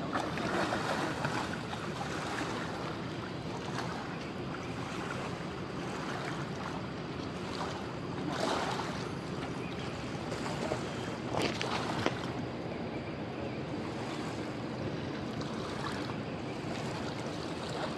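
Steady rushing of a wide river's current mixed with wind on the microphone. A few short, louder noises stand out about eight and a half and twelve seconds in.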